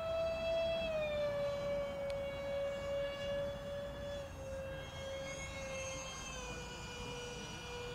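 Electric ducted fans of a twin-engine RC model Boeing 737 MAX 8 in flight: a steady high whine that drops a little in pitch in small steps, about a second in and twice more later.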